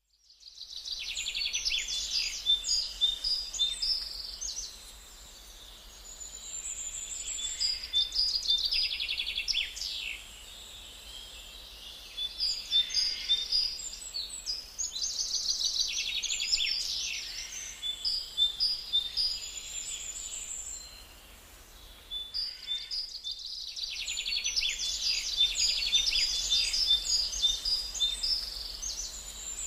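Songbirds singing: bouts of rapid, varied chirps and trills a few seconds long, with short quieter pauses between them, over a faint low hum.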